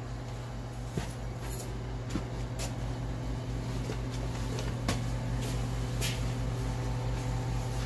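Steady low hum of bakery workroom machinery, with scattered light clicks and knocks a few times.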